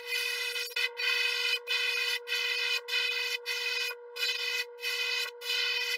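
Airbrush spraying paint: a hiss of air that starts and stops in short bursts about every half second as the trigger is worked, over a steady faint hum.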